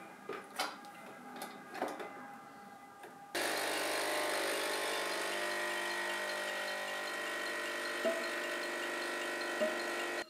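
A few light clicks and knocks, then about three seconds in a capsule espresso machine's pump starts with a steady buzzing hum while espresso pours into the cup, with two brief chirps near the end before it cuts off suddenly.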